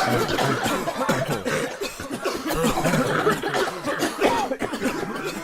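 A crowd of people coughing, many coughs overlapping into a continuous jumble.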